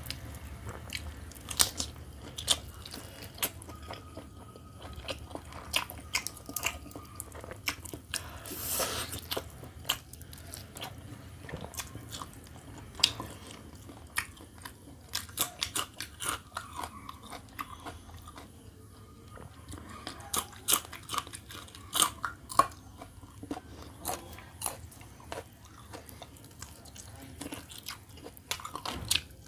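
A person eating roast chicken by hand, close to the microphone: meat pulled off the bird, then bitten and chewed, with many sharp, irregular mouth clicks and crunches.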